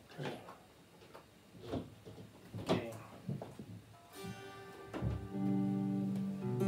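Scattered clicks and knocks of a guitar and its cable being handled, then about four seconds in a guitar chord strummed and left ringing, played through a Bose S1 Pro speaker on its guitar ToneMatch setting.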